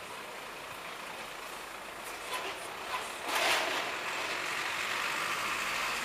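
Street traffic with a truck running close by: a steady rumble and hiss, with a short, louder hiss a little past halfway, after which the noise stays a bit louder.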